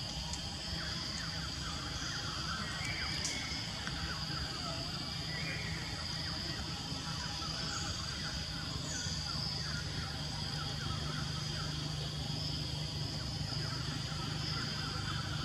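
Outdoor ambience: a steady high-pitched drone, a low hum underneath and scattered faint chirps.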